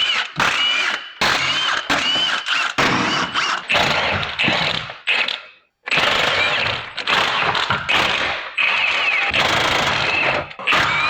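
Impact wrench on an extension hammering on bolts of a small-block Chevy, in a dozen or so short bursts with brief pauses between. Its motor whine bends up and down in pitch within each burst.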